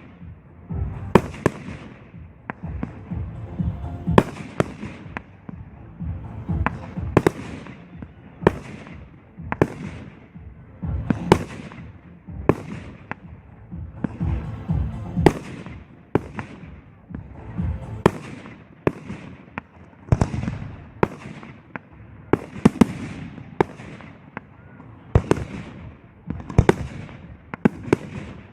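Aerial firework shells bursting in quick succession, a sharp bang about every second, each followed by a rolling echo.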